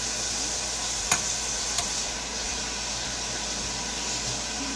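Kitchen tap running in a steady stream of water, with two short clicks about a second in and near two seconds.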